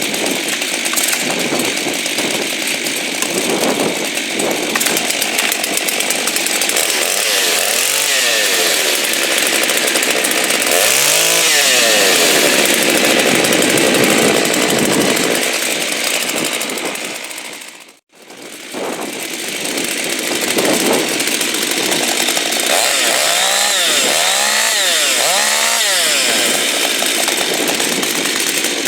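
Two-stroke chainsaw running at high speed and cutting wood, its engine pitch sagging and recovering several times as the chain bites. The sound drops out for a moment about two-thirds of the way through, then resumes.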